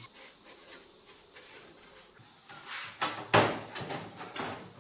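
A faint steady hiss, then, about two and a half seconds in, a run of knocks and two loud thuds as a small CRT television's plastic cabinet is shifted about on a wooden table.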